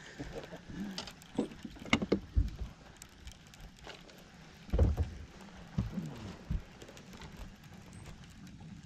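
Handling noise in a bass boat while a hooked bass is reeled in: scattered light clicks and a few dull low thumps, the loudest about five seconds in.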